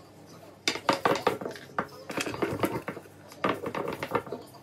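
Baklava dough being handled and rolled out with a long thin wooden rolling pin on a floured table: runs of quick knocks and rubbing, starting about a second in and again about three and a half seconds in.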